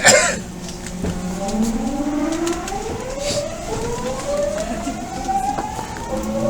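Odakyu 1000-series train's Mitsubishi GTO-VVVF inverter and traction motors whining as the train accelerates. Several tones climb steadily in pitch from about a second in, after a short hiss at the start.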